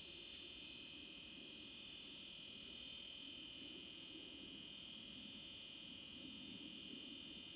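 Faint steady background drone: one even high-pitched tone over a low rumble, with no distinct events.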